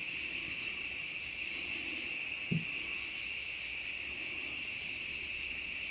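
Crickets chirping in a steady night-time chorus, with one brief knock about two and a half seconds in.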